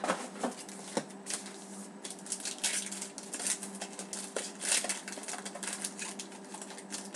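Foil hockey-card pack being torn open: its wrapper crinkles and rustles in a rapid, uneven run, after a few light knocks of cardboard being handled in the first second. A faint steady low hum runs underneath.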